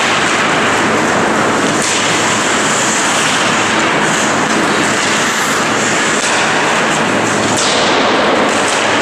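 Steady, loud din of ice hockey play in an indoor rink: skates scraping across the ice and the hall's echoing noise, with a few faint clicks of sticks and puck.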